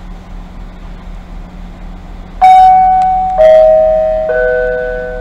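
Railway station public-address chime: three descending struck tones about a second apart, each ringing on and fading, the attention signal that comes before a train announcement.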